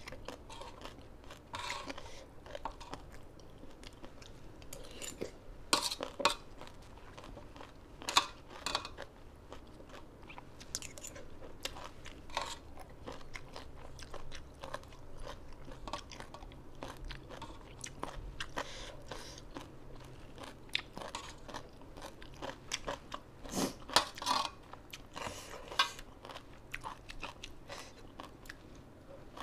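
Close-up chewing and biting of crunchy food, a spicy tam sua noodle salad eaten with raw vegetables, with irregular crisp crunches between softer chewing.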